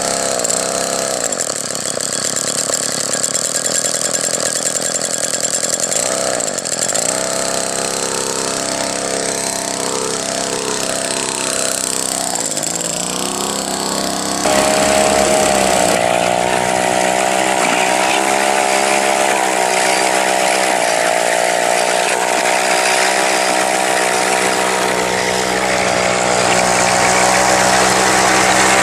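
Two-stroke chainsaw engine driving a homemade rail cart through a V-belt and clutch. In the first half its pitch rises and falls as it is revved; about halfway through it turns louder and runs at a steady high speed.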